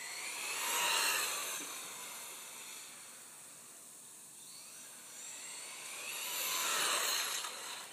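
Team Associated RC18T 1/18-scale truck with a brushless motor whining at speed, swelling and fading twice as it runs past, the pitch sliding as it comes and goes.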